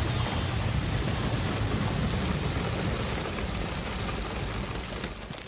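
A large load of grain seeds pouring down in a heavy avalanche onto a pile: a dense, rushing rattle with a deep low rumble underneath, thinning out near the end.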